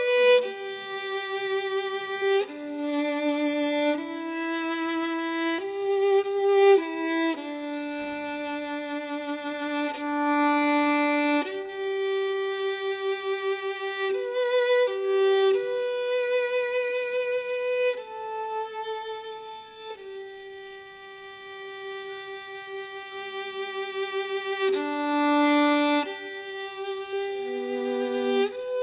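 Slow solo instrumental melody: one line of long held notes with vibrato, moving stepwise, mournful in pace.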